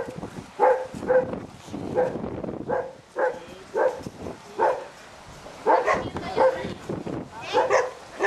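Dogs barking, a dozen or so short barks at irregular intervals.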